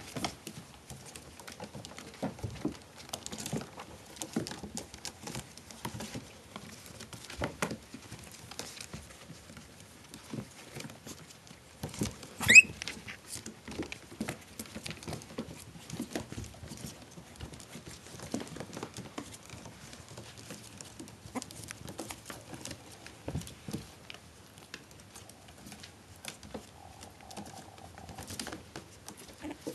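Four-week-old Maltese–Shih Tzu cross puppies scrambling over each other on newspaper and a blanket: a patter of small scratches, rustles and clicks. About twelve seconds in, one puppy gives a sharp, high-pitched yelp.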